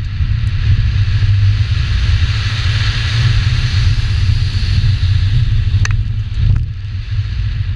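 2000 Subaru Legacy GT's 2.5-litre flat-four engine running at racing pace, a low pulsing drone under a steady hiss of tyres on loose dirt that is loudest around the middle, picked up by a hood-mounted camera with wind on the microphone. Two sharp ticks come about six seconds in.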